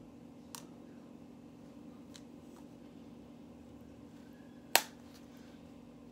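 Small plastic clicks from fingers prying at the lid of a round cosmetic powder container that won't open, with one sharp, loud click about three-quarters of the way through.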